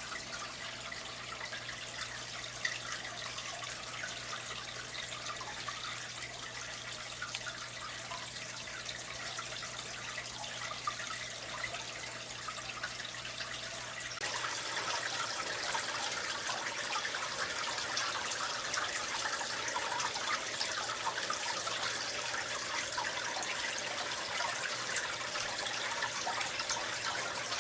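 Running water trickling and splashing steadily, with fine drips and spatters; it gets louder about halfway through.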